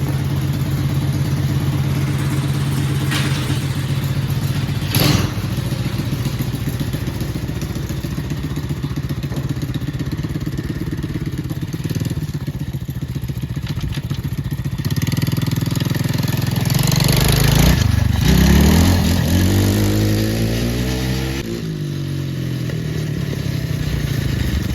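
Four-wheeler (ATV) engine running at a steady idle, with one sharp knock about five seconds in. After about sixteen seconds the engine speed rises and falls a few times in rising and falling sweeps, then settles back to idle near the end.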